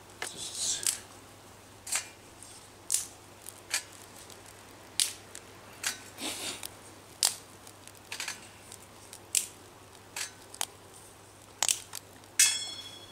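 Twigs burning in a small stainless steel wood-burning camp stove, crackling with sharp, irregular pops about one a second. Near the end comes a single louder metallic clink that rings briefly.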